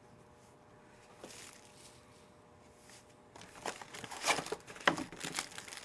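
Trading card pack wrappers crinkling and rustling as packs are handled and opened. It starts about halfway in, with a couple of sharper crackles.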